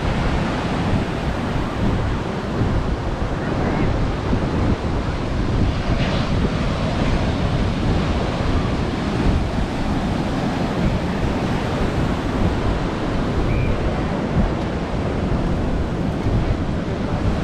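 Ocean surf breaking, a steady wash of waves, with wind buffeting the microphone and adding a low rumble.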